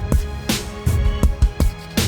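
Background music with a steady drum beat over held instrumental notes.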